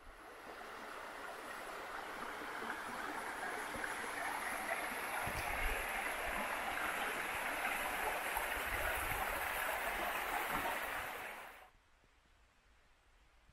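Flowing water, a stream running steadily. It swells in over the first few seconds and cuts off suddenly about eleven and a half seconds in.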